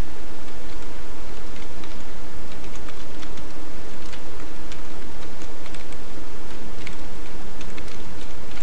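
Computer keyboard being typed on: a string of light, irregular key clicks over a steady hiss.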